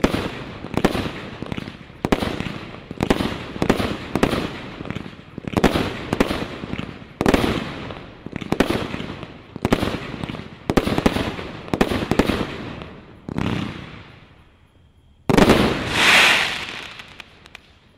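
A multi-shot fireworks cake firing a rapid volley of aerial shots, about one to two sharp bangs a second, each trailing off. After a pause of almost two seconds comes a final, louder burst that dies away.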